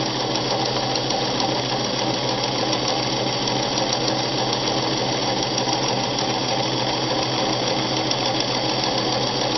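Vintage Japanese-built White 764 sewing machine running steadily at speed, stitching a wide zigzag in free-motion mode with the feed dogs dropped and the fabric guided by hand.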